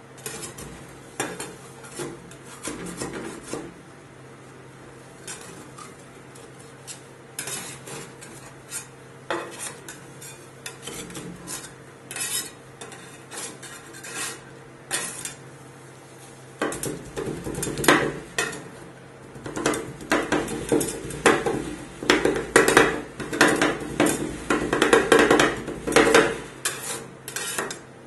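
Two metal spatulas chopping and scraping on a steel ice-roll cold pan, breaking chocolate pieces into the frozen milk base: irregular metallic clacks and scrapes. They are sparse at first, then turn into fast, louder chopping from a little past halfway. A steady low hum runs underneath.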